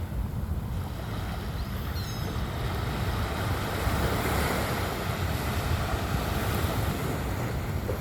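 Bay water washing and surging, swelling louder around the middle, over a steady low wind rumble on the microphone.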